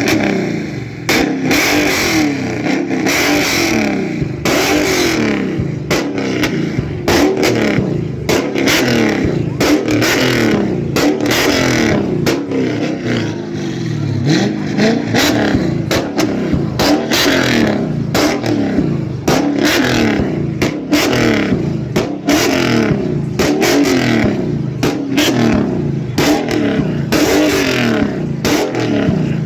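Ford Mustang and Dodge Challenger engines revving in turn, the pitch climbing and dropping again about once a second, over and over.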